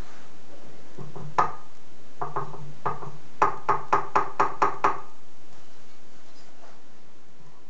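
A small cast pewter lamp flower on its brass stem knocked against a wooden bench block: one sharp knock, a few lighter taps, then a quick run of about seven knocks, shaking loose the dirt packed inside it.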